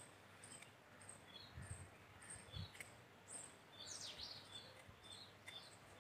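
Faint bird chirping: short, high chirps repeated throughout, with one downward-sliding call about four seconds in.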